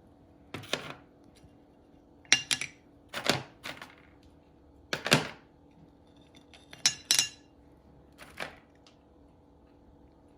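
Small tumbled rocks clicking and clacking against each other and a hard surface as they are picked up and set down, about eight separate sharp knocks, some with a short bright ring.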